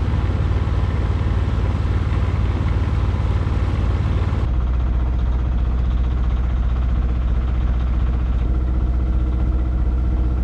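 A sailboat's auxiliary engine running steadily under way, a loud low drone. The sound changes abruptly about four and a half seconds in, settling into a deeper, steadier hum.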